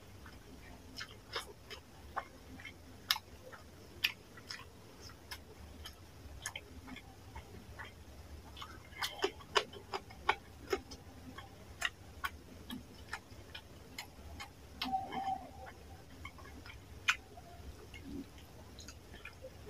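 Close-miked eating by hand: many irregular wet mouth clicks and lip smacks while chewing fish curry and rice, with fingers squishing rice in the curry.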